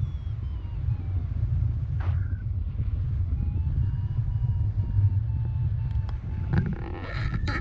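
Airflow buffeting the microphone in paraglider flight, a steady low rumble. Under it a faint electronic variometer tone steps and glides slowly in pitch, and a few knocks and rustles come near the end.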